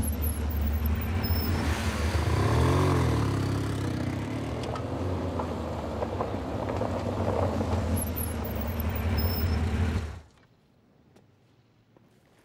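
Police motorcycle engines running as the bikes ride along, the pitch rising and falling about two to three seconds in. The engine sound cuts off about ten seconds in, leaving near silence with a few faint clicks.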